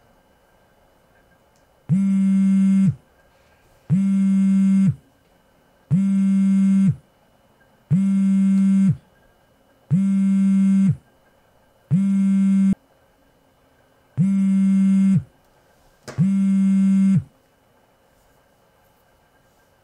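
Mobile phone buzzing on vibrate with an incoming call: eight one-second buzzes, about two seconds apart.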